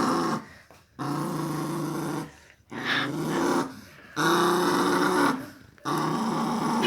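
Pet dog growling in a series of long, deep growls, each about a second long, with short pauses between them, about five in all.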